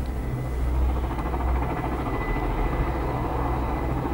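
Steady low rumble inside a moving gondola cabin riding along its cable, with a faint steady high whine.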